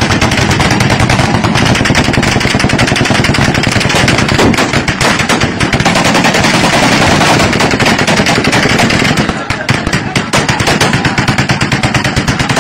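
Gunfire from many guns at once: rapid, overlapping shots packed so closely that they run together with hardly a pause, dipping slightly about three-quarters of the way through.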